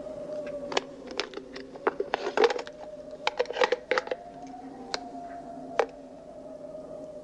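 Clicks, knocks and scrapes of goods being handled on an old film soundtrack, over a steady hum whose pitch slowly wavers. The clicks come singly at first, then in two quick clusters about two and three and a half seconds in, with a last sharp knock near the end.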